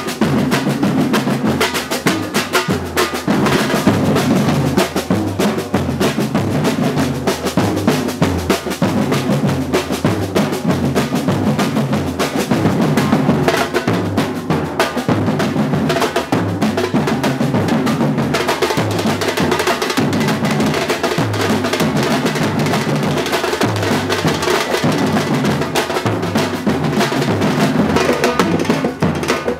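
Batucada samba drum ensemble playing together without a break: deep surdo bass drums struck with mallets keep a repeating low pulse under dense, fast snare-drum strokes.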